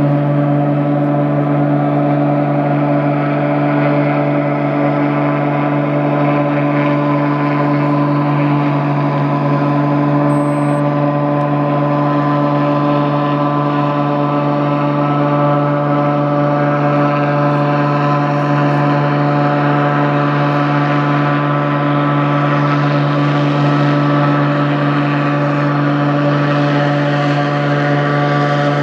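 Cessna floatplane's propeller engine held at full takeoff power, a steady drone, as the overloaded plane runs on its floats along the water without lifting off.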